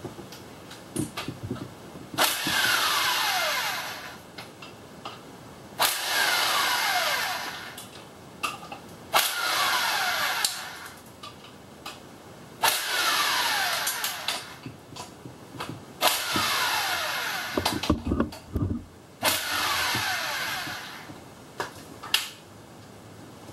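Cordless impact wrench taking out the flywheel damper bolts on a Prius engine. Six bursts of about a second and a half, roughly every three and a half seconds, each with a falling whine as the motor winds down, and small metal clinks in between.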